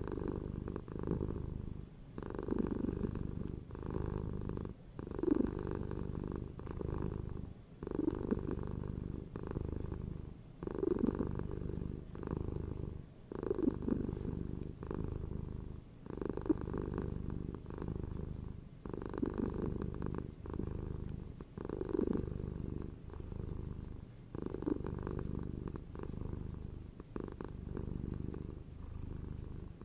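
Domestic cat purring steadily, a low rumble that swells and fades in regular pulses about every second or so with its in- and out-breaths.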